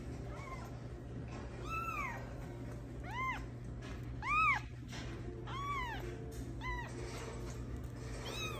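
A young kitten mewing repeatedly: about seven short, high-pitched mews roughly a second apart, each rising and then falling in pitch, the loudest about halfway through.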